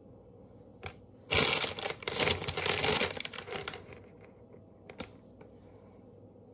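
Crinkling and rustling of handled packaging for about two and a half seconds, starting a little over a second in, with a single light tap before it and another near the end.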